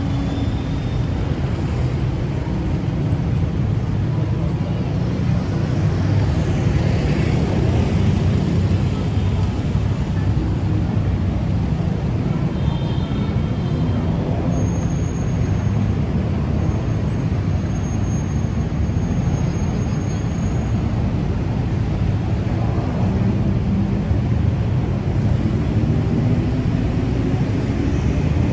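Steady low rumble of heavy city road traffic, with cars, taxis and motorbikes running in the lanes close by.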